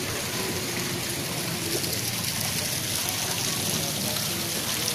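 Steady hiss of water, with faint distant voices.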